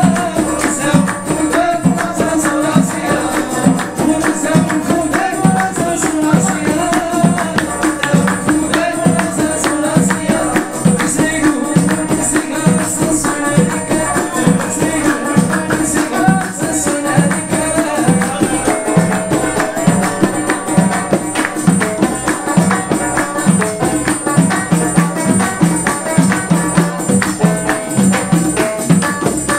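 Live Moroccan folk music: a banjo and keyboard play a wavering melody over hand-held frame drums beating a steady rhythm.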